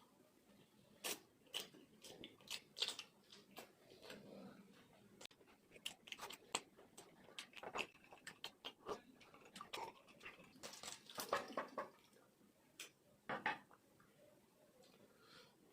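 A person eating close to the microphone: chewing with many irregular, sharp wet smacks and clicks of the mouth.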